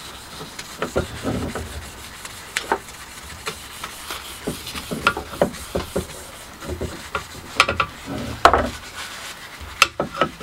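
A cloth rubbing along the steel-tube shaft of a walking cane, buffing microcrystalline wax into it to lift old dirt and give it a shine. It goes as irregular short rubbing strokes, with a few sharper clicks in the last few seconds.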